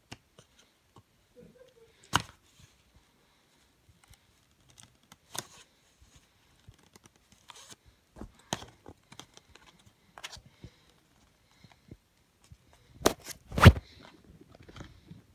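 Scattered clicks, taps and rustles of scissors and a cardboard DVD box being handled as it is cut open, with two loud knocks close together about thirteen seconds in.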